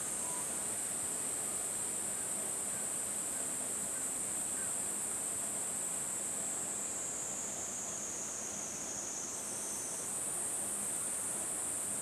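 Steady high-pitched insect chorus shrilling without a break. Its pitch sags a little lower for a few seconds after the middle, then jumps back up.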